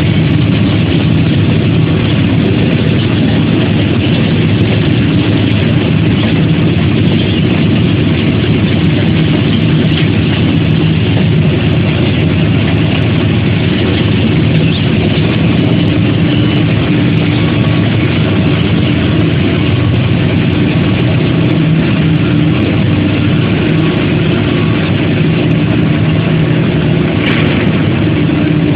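Steady, loud machinery noise of a running charcoal briquette production line: the roller press and conveyor belt motors keep up an unbroken low hum.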